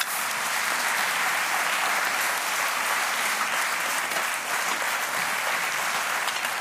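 Studio audience applauding, a steady unbroken clapping.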